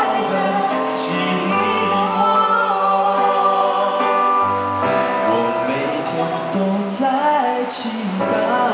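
Live band music: singing over keyboard chords and electric bass guitar.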